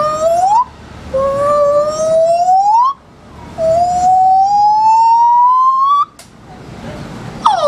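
Gibbon singing: a run of long, loud hooting notes, each two to three seconds, slowly rising in pitch and sweeping up at the end, with short gaps between. A new note starts near the end with a sharp fall in pitch.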